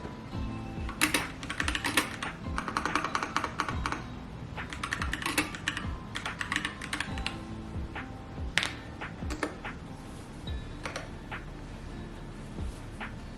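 Typing on a keyboard: clicking keystrokes come in quick irregular bursts with short pauses, over background music.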